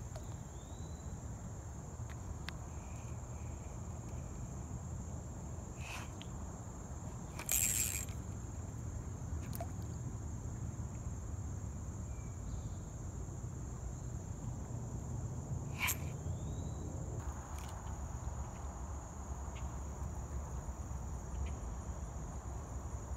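Steady high-pitched chorus of insects such as crickets over a low rumble, with a few sharp clicks and a brief, louder rustling burst about eight seconds in.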